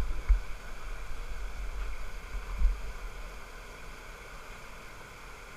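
Steady rushing of a valley stream's flowing water, with low thumps on the microphone during the first three seconds.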